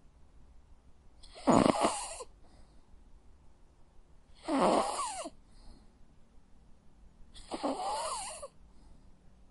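Sleeping dog snoring: three snores about three seconds apart, each with a thin whistling tone running through it.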